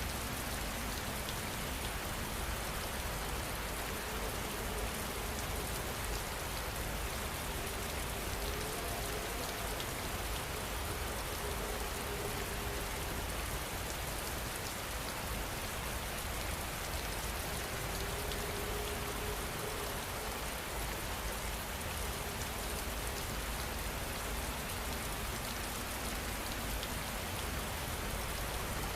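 Steady rain falling, with many individual drops ticking through an even hiss.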